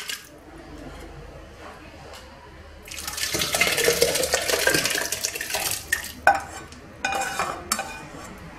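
Cooked lentil soup poured and scraped out of a pan into a plastic blender jug: a loud wet, sloshing pour starting about three seconds in, then a few sharp knocks and scrapes of the pan against the jug.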